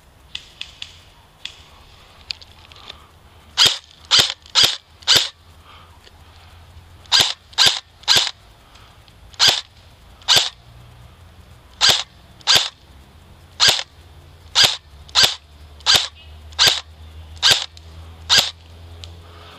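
Airsoft rifle fired in single shots, about eighteen sharp pops. They come first in quick strings of four and three, then one every second or less, as the shooter engages targets.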